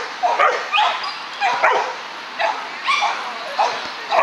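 Dog barking over and over, short sharp barks about two a second.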